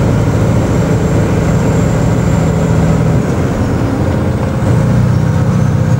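Caterpillar diesel engine of a Kenworth logging truck running while driving, heard from inside the cab as a steady low drone. The engine note eases off about three seconds in and picks up again a second and a half later.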